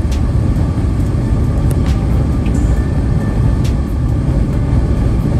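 Car driving at highway speed, heard from inside the cabin: a steady low rumble of tyres and engine, with a few faint ticks.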